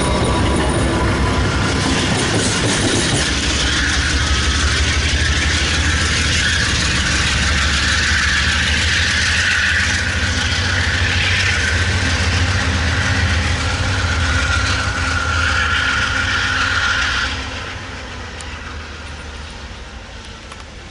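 Amtrak GE Genesis P42DC diesel locomotive working hard with its passenger train: a steady low engine drone with wheel and rail noise, dropping away about 17 seconds in as the train moves off.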